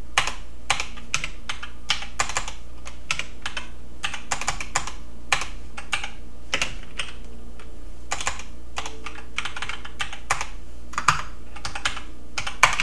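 Computer keyboard typing: irregular single keystrokes and short runs of key clicks with pauses between, over a steady low hum.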